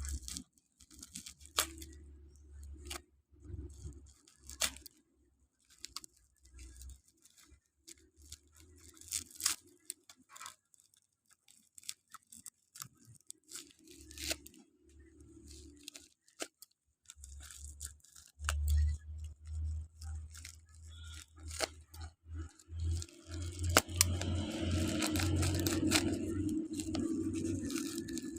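A parcel's packaging being handled and torn open: scattered crinkles and clicks, then a longer stretch of tearing and rustling near the end.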